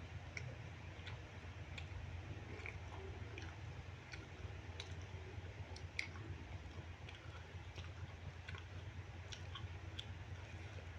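Close-up chewing of fried rice with chicken liver and gizzard, with scattered sharp wet mouth clicks about once a second. A steady low hum runs underneath.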